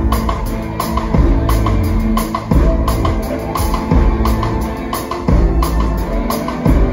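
Live rock band playing loud on stage: a drum kit lands a heavy hit about every one and a half seconds over sustained chords.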